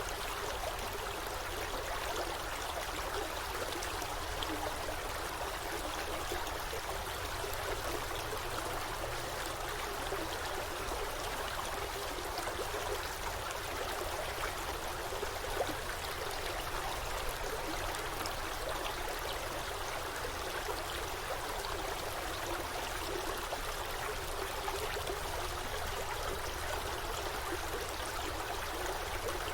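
Forest stream flowing and trickling steadily over rocks, a continuous even rush of water with small bubbling splashes.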